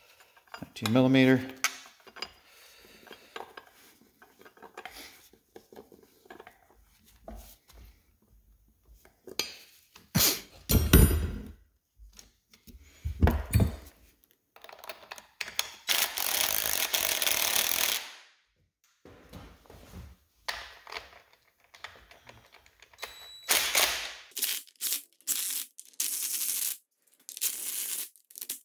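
Cordless impact driver running the case bolts into a transfer case in several bursts, the longest about three seconds near the middle and a run of short ones near the end. Bolts and metal tools clink in between.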